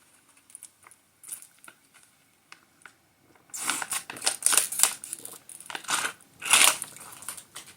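A few soft clicks, then about four seconds of close rustling and crinkling handling noise.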